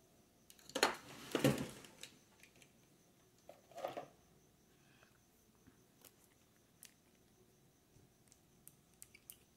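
Close handling noise of a clear plastic nail-swatch stick and a small powder jar: a loud rustling clatter about a second in, a shorter one about four seconds in, then a few light plastic clicks near the end.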